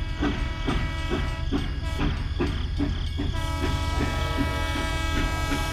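Battery-powered toy steam locomotive running on plastic track, playing its electronic chugging sound at about three chuffs a second over a steady low hum. A little past halfway a held whistle tone joins the chugging.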